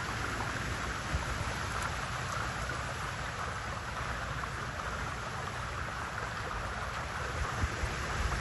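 Steady background hiss with a low, fluttering wind rumble on the microphone.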